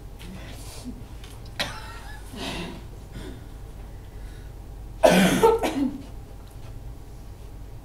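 A person coughing: a smaller cough about a second and a half in, then a louder burst of several coughs about five seconds in.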